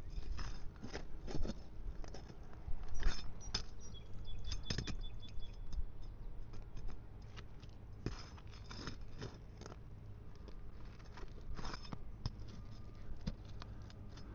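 A steel flat bar prying roofing nails out from under asphalt shingles: irregular metal clicks, taps and short scrapes.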